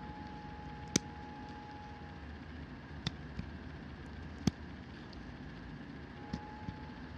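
A few isolated light clicks, spaced a second or more apart, from handling a small metal hand ratchet wrench and its socket, over faint steady room hiss.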